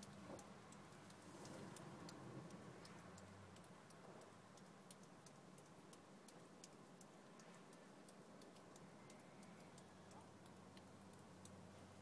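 Near silence: faint room tone with scattered faint ticks at irregular intervals.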